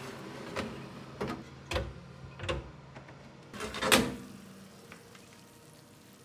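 Kitchen knocks and clatters of cookware being handled: a few sharp knocks about every half second, then a louder clatter about four seconds in.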